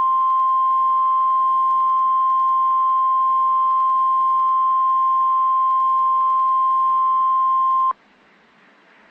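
NOAA Weather Radio's 1050 Hz warning alarm tone: one loud, steady beep that cuts off abruptly about eight seconds in, leaving faint radio hiss. It is sent during the required weekly test to switch on the specially built alert receivers.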